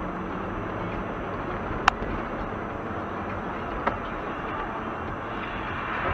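Steady road and engine noise of a moving car, heard from inside the cabin on a dash cam, with two sharp clicks about two seconds apart.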